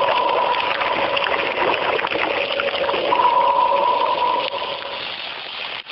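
Logo-reveal sound effect: dense electric crackling with a steady buzzing hum, fading out near the end.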